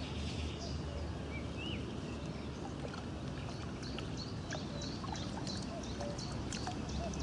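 Small birds chirping over a steady outdoor background. In the second half there is light splashing from a hooked crucian carp thrashing at the water's surface.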